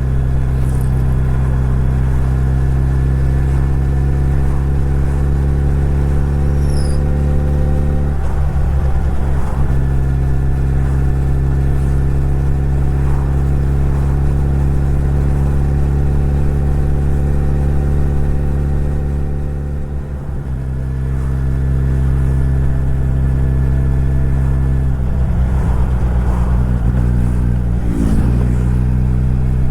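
Suzuki Hayabusa's inline-four engine running steadily under way, with its pitch shifting about eight seconds in and again near twenty-five seconds, and a brief dip in level around twenty seconds.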